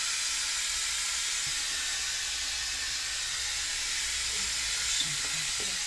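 A steady, even hiss, strongest in the high range, with faint low voice sounds murmuring briefly near the end.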